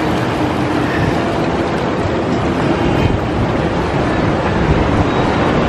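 Sea surf washing and churning among shoreline rocks, with a steady wind rumble on the microphone.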